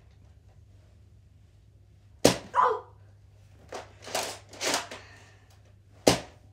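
Two sharp cracks from a Nerf Ultra foam-dart blaster firing, one about two seconds in and one near the end, with a few softer swishing rustles between them.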